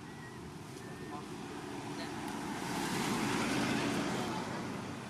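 A vehicle passing on the road: its engine and tyre noise swells to a peak about three to four seconds in, then fades.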